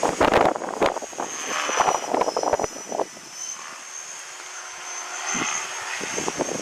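Align T-REX 500 electric RC helicopter flying, its motor and rotors giving a steady high-pitched whine that wavers slightly in pitch. Heavy wind buffets the microphone in loud gusts during the first three seconds, then eases.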